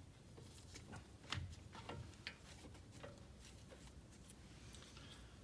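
Faint clicks and knocks of a small clamp and socket being fitted against a brake caliper and pad, the most distinct knock about a second and a half in.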